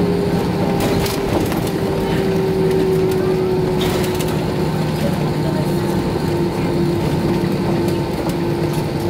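Cabin noise of an Airbus A320-214 slowing on the runway after touchdown: its CFM56 engines spooling down, a steady hum whose tone sinks slowly in pitch, over the low rumble of the wheels rolling, with a couple of light knocks.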